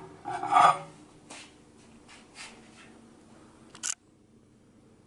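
A ceramic plate scraping as it is slid across a microwave's glass turntable and pulled out, loudest in the first second, followed by faint scuffs and a short sharp click near the end.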